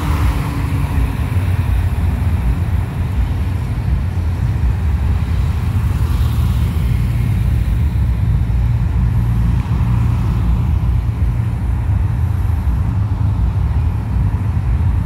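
Road vehicles driving past: a steady low engine rumble, with the tyre and engine noise of passing cars rising and falling a few times.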